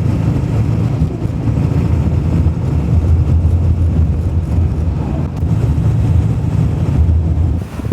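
A 1996 Ford F350's 7.3 Powerstroke diesel truck heard from inside the cab while driving: a steady low engine and road rumble, which cuts off just before the end.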